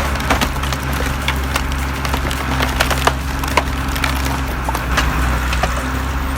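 Logs cracking and splintering as a machine splits them, with sharp snaps scattered irregularly over the steady low hum of the machine's engine.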